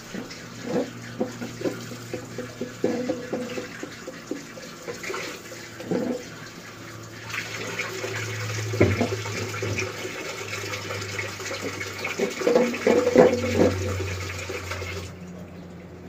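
Silicone spatula stirring and scraping sugar as it melts into caramel in a metal pot: a run of short scrapes and squeaks over a steady hiss that grows louder about seven seconds in and drops away near the end.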